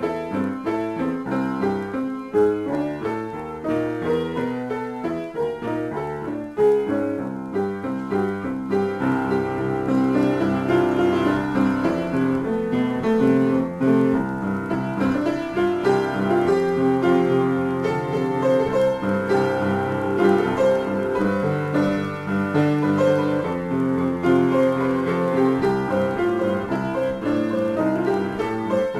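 Solo piano improvisation: a run of quick, separate notes for the first several seconds, then fuller sustained chords and a denser, slightly louder texture from about nine seconds in.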